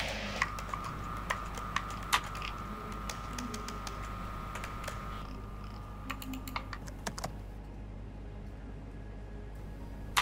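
Irregular light clicks and taps, some in quick clusters, over a low steady hum, with a faint steady tone through the first half.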